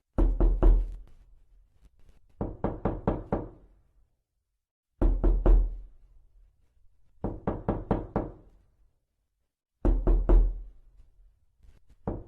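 Knocking in quick groups of about five knocks, a new group every two and a half seconds or so. The groups alternate between a heavier one with a deep thud and a lighter, thinner one.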